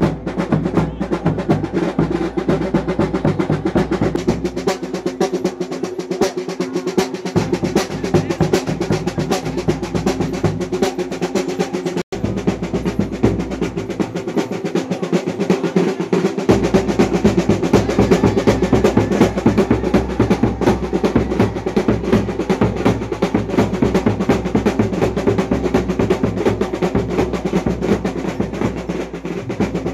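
Chenda melam, a Kerala percussion ensemble, playing fast, continuous drumming with a dense roll, breaking off for an instant about twelve seconds in.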